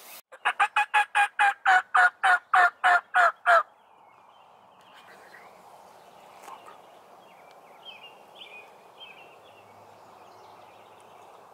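A fast series of about fifteen loud turkey yelps, evenly spaced at roughly four to five a second, each note dropping in pitch at its end, lasting about three seconds. Afterwards only a quiet outdoor background with faint small-bird chirps.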